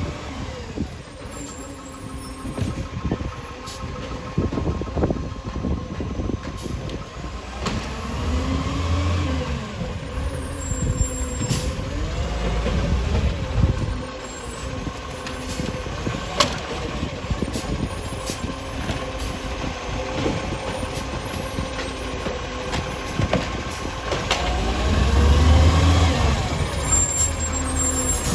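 Iveco side-loader garbage truck's diesel engine running and revving up and down several times as its hydraulic side arm lifts bins, growing louder near the end as the truck comes close. A few short sharp knocks sound in between.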